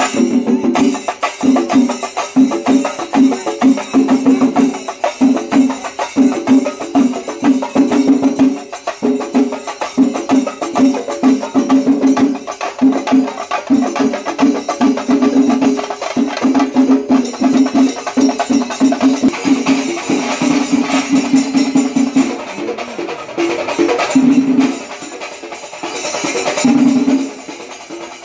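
Traditional Kerala temple percussion ensemble: drums beaten in fast, dense strokes with jingling cymbals, briefly easing twice near the end.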